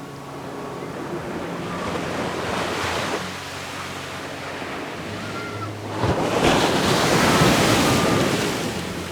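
Ocean waves breaking on a beach: one wave swells and washes in about two to three seconds in, then a larger, louder one builds from about six seconds in and fades near the end.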